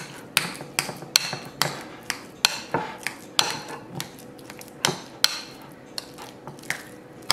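Metal spoon mashing ripe avocado in a glass bowl, its strokes knocking against the glass about twice a second, unevenly, with soft squelching between.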